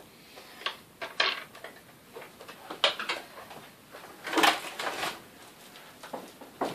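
Hard vacuum-cleaner parts being handled out of their box, knocking and clattering: about half a dozen separate, irregular knocks, with a louder cluster a little past the middle.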